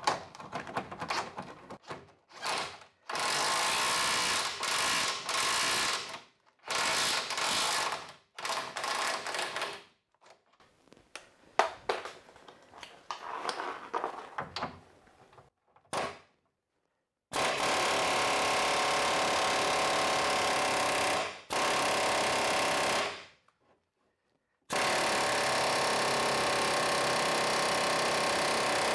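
Impact wrench hammering in repeated bursts of one to four seconds on a seized, rusted suspension link-arm bolt, with metal knocks and clatter between the bursts.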